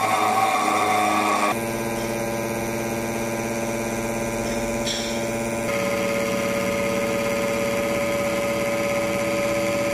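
CNC granite engraving machine running: a steady mechanical whine and hum made of many tones together. The pitch and mix change abruptly about 1.5 seconds in and again near 6 seconds.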